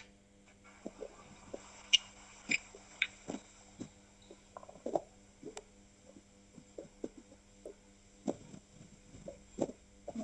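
Faint scattered small clicks and knocks at irregular intervals, a few sharper ones about two to three seconds in, over a steady electrical hum.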